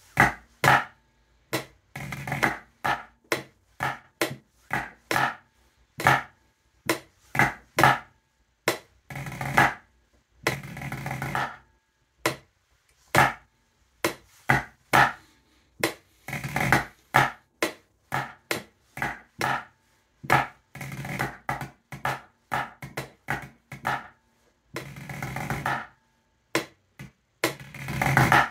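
Wooden drumsticks playing a snare drum part on a practice pad at 66 beats per minute: crisp single strokes, broken up by rolls that last up to about a second.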